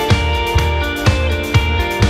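Background music with a steady beat, about two beats a second, and a plucked guitar.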